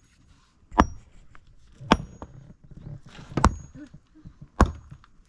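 Four sharp blows, one a little over a second apart, each with a short high metallic ring, like a metal tool striking repeatedly.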